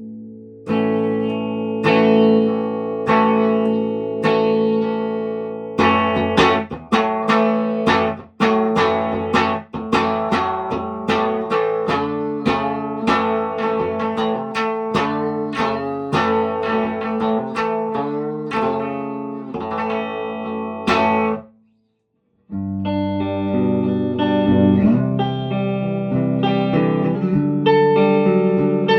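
1966 Gibson SG Standard electric guitar with its original electronics being played: picked chords and quick single notes. The playing stops for about a second roughly three-quarters of the way through, then resumes with longer ringing chords.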